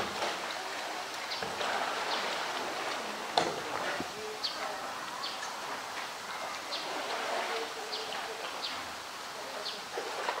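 Pool water lapping and splashing as a polar bear swims with a blue plastic drum, with one sharp knock a few seconds in. Over it, short high bird chirps repeat about once a second.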